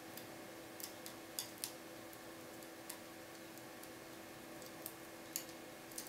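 Small, sharp metallic clicks at irregular intervals as a lock pick works the pins of a TESA TE5 cylinder under a tension wrench, a few close together early and more near the end.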